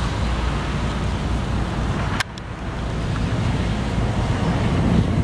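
Steady rumble of wind on the microphone with a distant Boeing 787 airliner on final approach. A sharp click about two seconds in, after which the sound drops suddenly and gradually builds back up.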